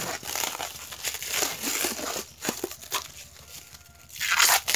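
Irregular crinkling and rustling handling noise as a stainless steel aftermarket motorcycle silencer is turned over by hand, with the loudest burst near the end.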